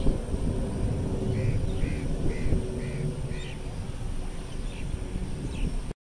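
Wind rumbling on the microphone under a steady distant drone from a jet airliner taking off. Over it a bird calls five times in an even series about half a second apart. The sound cuts off suddenly near the end.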